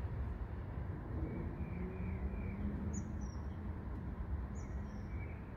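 Steady low rumble of road traffic, with a small bird giving short high chirps twice, about three and four and a half seconds in.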